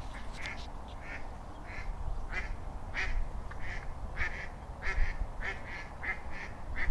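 Ducks quacking: a steady run of short quacks, about two to three a second.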